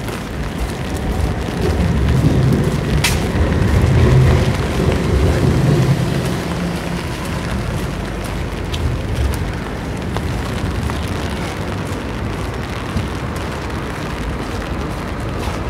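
Steady hiss of rain on a wet city street, with a low rumble that swells about two seconds in and fades by about six seconds. A single sharp click about three seconds in.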